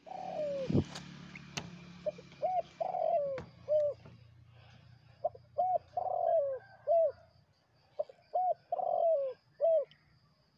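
Spotted dove cooing: three repeated phrases, each of short hooting notes around one longer falling coo, about three seconds apart. A dull knock and a couple of sharp clicks sound in the first few seconds.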